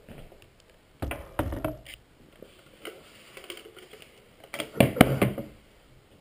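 Close handling noise: a cluster of knocks and rattles about a second in as the camera is moved and set down, then a louder cluster of knocks near the end. No rotor or motor sound is heard.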